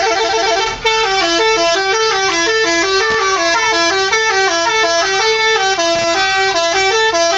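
A truck's telolet multi-tone musical horn playing a long, continuous melody, the tones hopping quickly between pitches in runs, with a brief break about a second in.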